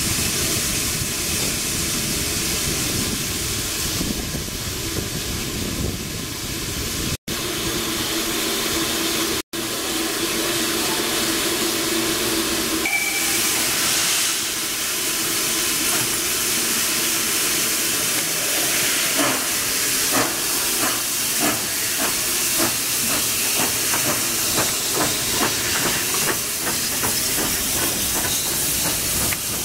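Steam locomotive hissing loudly. From about halfway, regular beats come in over the hiss as the engine works.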